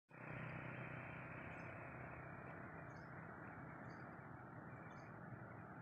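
Faint, steady outdoor ambience, with short high chirps of a small bird or insect roughly once a second.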